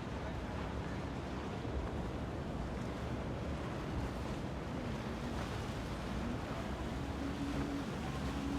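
Steady rush of wind and water on open water, with faint short tones in the second half.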